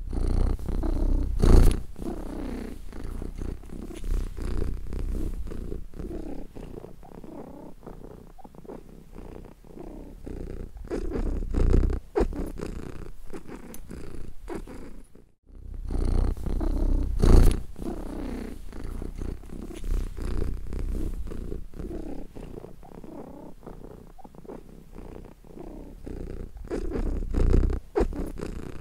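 Domestic cat purring close to the microphone, a steady low rumbling flutter that swells and fades every couple of seconds, with a few louder thumps along the way. The sound breaks off for an instant about halfway through, then the same stretch of purring starts over.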